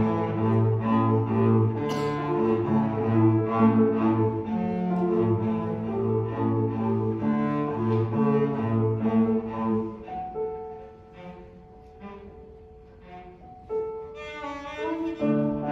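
Cello playing a classical piece with piano accompaniment: a run of low bowed notes, then a quieter passage of long held notes about ten seconds in, and fuller playing again near the end.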